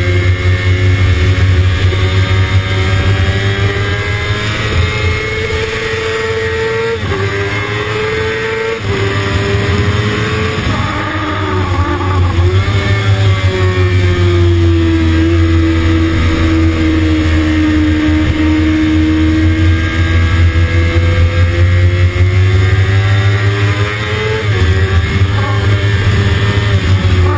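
Kawasaki ZX-6RR's inline-four engine running at high revs on track. Its pitch climbs, drops sharply at a gear change about seven seconds in, and breaks up over a few seconds of braking and downshifting. It then sags slowly and climbs again through a long corner. Heavy wind rush on the microphone runs underneath.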